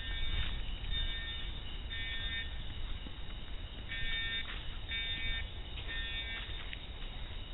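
High school fire alarm horns sounding the temporal-three evacuation pattern: three half-second electronic blasts about a second apart, a pause of about a second and a half, then three more.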